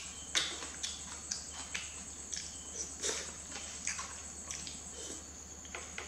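Close-miked mouth sounds of a person chewing a mouthful of noodles and vegetables: irregular wet clicks and smacks, about one or two a second, over a steady high hiss.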